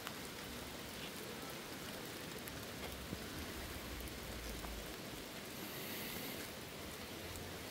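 Steady rain falling, with scattered sharp drop ticks through it.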